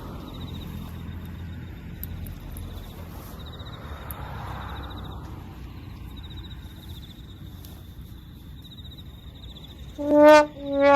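Outdoor background with a low rumble and an insect trilling in repeated short bouts. About ten seconds in, loud music with horn-like notes starts.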